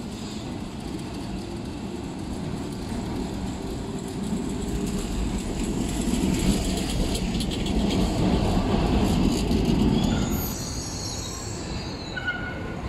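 A Milan tram passing close by on street track, its rumble growing louder as it draws alongside, with clicks of the wheels over the rails. Near the end, high-pitched wheel squeal.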